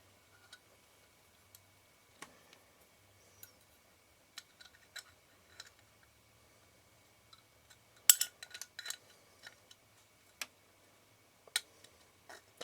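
Scattered small clicks and light clinks of lens parts and tools being handled and fitted on a workbench during reassembly of a camera lens's focus mechanism, with a louder cluster of clicks about eight seconds in.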